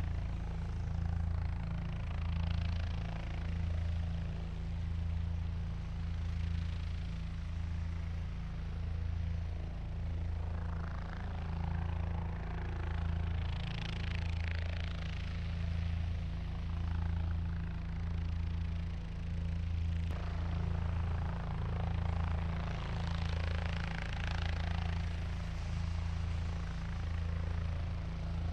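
Helicopter flying, a steady low rotor and engine hum that rises and falls gently about every two seconds. A rushing hiss swells over it three times, most strongly about halfway through.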